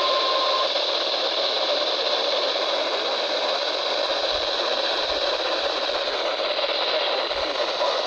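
Steady radio static hiss from a NOAA Weather Radio receiver tuned with no speech on the channel. A faint steady tone runs under it and stops just after the start.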